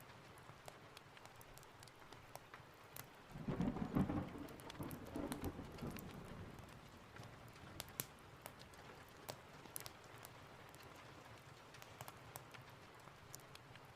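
Steady rain with scattered sharp ticks and crackles throughout. A roll of thunder rises about three and a half seconds in and fades over the next two to three seconds.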